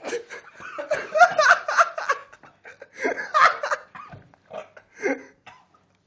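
Bursts of laughter in a small room, loudest about a second in and again about three seconds in, tailing off near the end.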